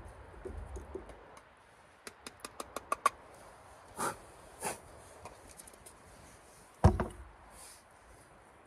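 Light taps from a GSI Java Mill hand coffee grinder being knocked to empty the ground coffee into an AeroPress: a quickening run of about eight short, slightly ringing taps about two seconds in, two more knocks a second or so later, and a louder thump near the end.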